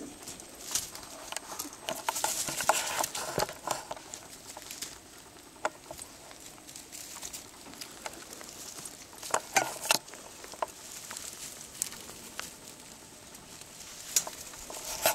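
Young French Angora rabbits scrabbling and moving about, making soft rustles and scattered sharp clicks, busiest about two to three seconds in and again around ten seconds in.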